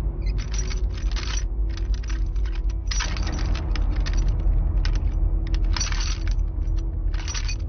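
Metal chains rattling and clinking in about seven short bursts, as a shackled man strains against them, over a low, steady music score.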